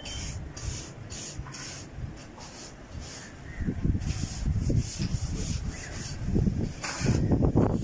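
Scraping and rubbing of silt and grit against the concrete floor of an emptied cement water tank as the settled mud is worked loose, in repeated strokes that grow heavier and louder in the second half.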